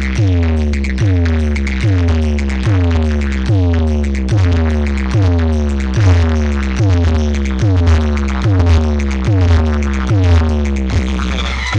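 Electronic music with a pulsing beat: a deep, steady bass under a falling synth sweep repeated a little more than once a second, the pattern breaking up near the end.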